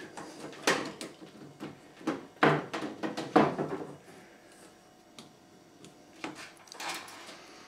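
Plastic clicks and knocks as a twin-solenoid washing machine water inlet valve is worked loose and pulled down out of its mounting, several sharp ones in the first few seconds and a couple of fainter ones near the end.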